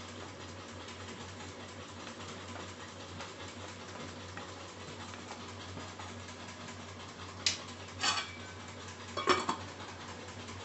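Wooden spatula stirring thick okra curry in a pan. Near the end come three sharp clinks and knocks of cookware as the steel lid is set on the pan, the last one the loudest.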